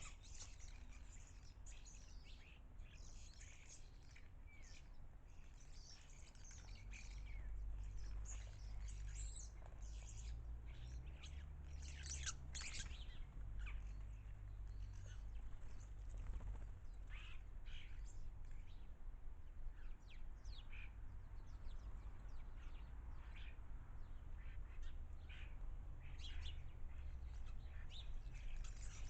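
Garden birds chirping and twittering in many short, overlapping calls, busiest in the first half, over a steady low rumble.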